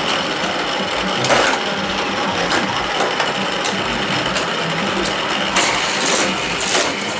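Hot Wheels loop track set's battery-powered booster running with a steady whir, with toy cars clicking and clattering through it every second or so, more often near the end.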